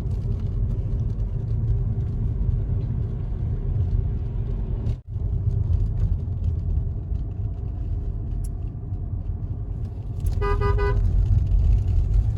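Steady low engine and road rumble of a car being driven, heard from inside. About ten seconds in a car horn sounds once, briefly.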